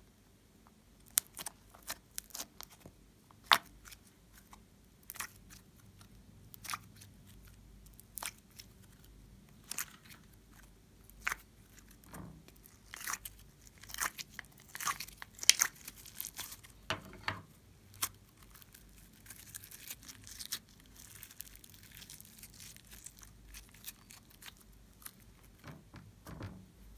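A plastic slime tray crackling and clicking as it is flexed and blue slime is peeled out of its compartments: irregular sharp clicks and crinkles, busiest in the middle, with softer sticky handling noise toward the end.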